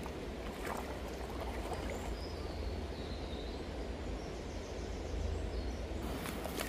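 Shallow river running over stones, an even steady rush of water, with a low wind rumble on the microphone. A few faint high chirps come about two to three seconds in.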